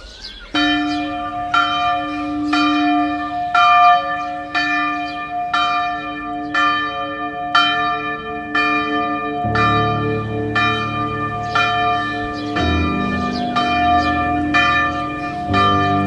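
Background music: bell-like notes struck about once a second over steady held tones, with a deep bass chord coming in about halfway through and changing twice.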